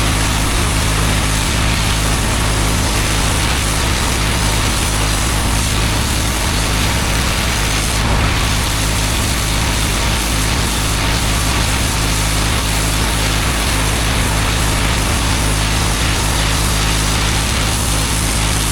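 Petrol-engine pressure washer running steadily under load, with the continuous hiss of its high-pressure water jet on block paving.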